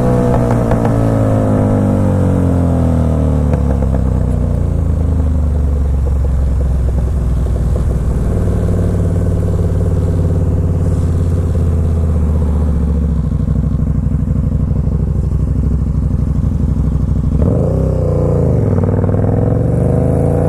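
KTM 1290 Super Duke R's V-twin engine, fitted with an Austin Racing exhaust, running under the rider. The engine's pitch drops off in the first few seconds, holds fairly steady through the middle, and rises and falls again near the end.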